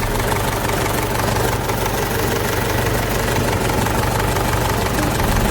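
Mahindra 475 DI tractor's four-cylinder diesel engine idling steadily with a fine, rapid knock. It is running after a crankshaft pulley seal and radiator repair.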